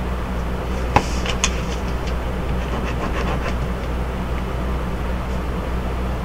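Steady low background hum, with one sharp click about a second in and a few faint ticks just after.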